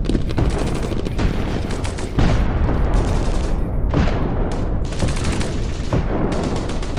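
Airsoft guns firing in rapid automatic bursts, a dense run of sharp snaps.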